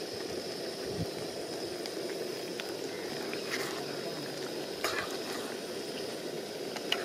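Chicken liver curry simmering and sizzling in a pan on a portable gas stove, with a steady hiss. In the second half, a metal spoon stirs the thick gravy and knocks against the pan a few times.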